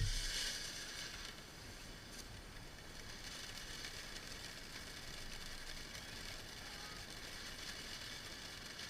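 Firework fountain spraying sparks with a steady hiss, louder in the first second and then holding level.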